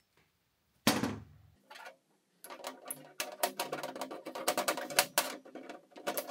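Steel hinge collars clicking and clinking against a steel shaft as they are turned and handled, with a knock about a second in and a quick run of metallic clicks through the last few seconds.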